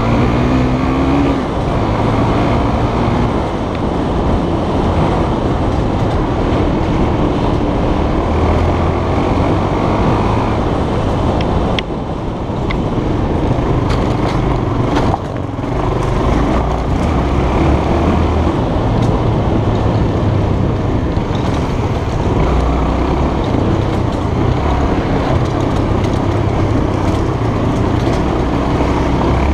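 Trail motorcycle engine running under load on a rough dirt track, heard from the rider's helmet, its note rising and falling with the throttle and easing off briefly twice around the middle, under a steady rush of wind and road noise.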